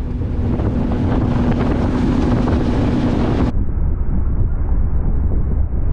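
Wind buffeting the microphone over the steady drone of a Mercury 250 Pro XS four-stroke outboard running at cruise, about 4400 rpm. About three and a half seconds in, the sound cuts abruptly to a duller, muffled version of the same wind and engine.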